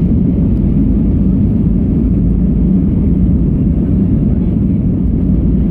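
Airliner engine and airflow noise heard inside the passenger cabin during takeoff: a loud, steady, deep rumble that does not change.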